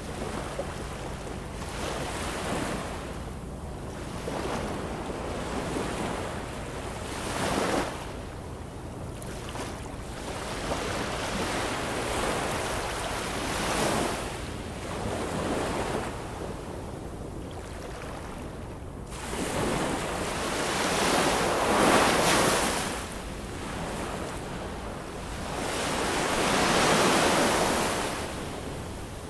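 Ocean surf: waves washing in, the sound swelling and falling away every few seconds, with the two biggest swells in the last third.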